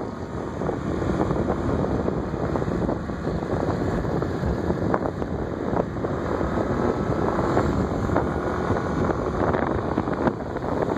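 Wind rushing over the microphone on a moving motor scooter, with the scooter's small engine running under it.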